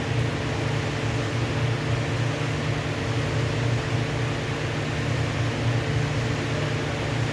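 TIG welding on 6-inch pipe: a steady electrical buzz with a hiss over it, unbroken.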